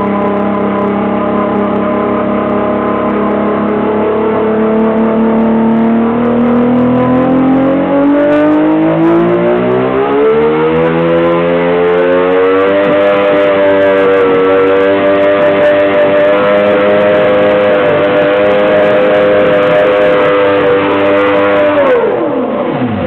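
Large outboard engine running under load on a dynamometer: its pitch climbs steadily from about 2,000 rpm to about 5,200 rpm, where it holds at roughly 180 hp, then drops sharply near the end as the engine speed falls away.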